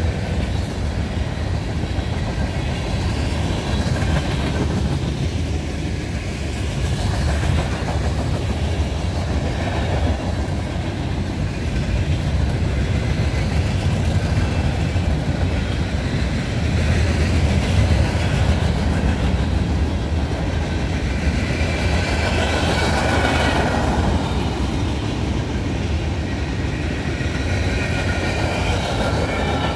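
Freight cars of a mixed freight train rolling past, their wheels making a loud, steady rumble on the rails. A brief swell of higher-pitched wheel noise comes about three quarters of the way through.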